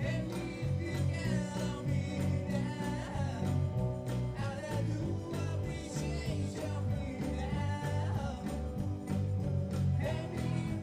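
A live band playing a song: a lead voice singing over guitar, bass and a steady drum beat.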